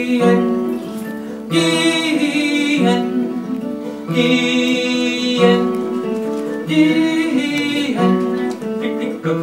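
Live acoustic music: a man sings in phrases to his own acoustic guitar accompaniment.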